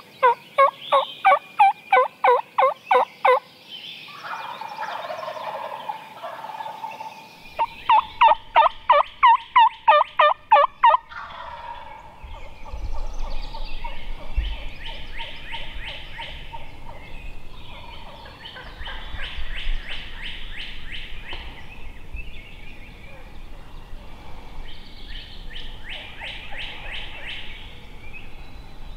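Wild turkey calling: two loud runs of about a dozen yelp-like notes at a steady beat, then three fainter, rapid rattling gobbles from toms further off.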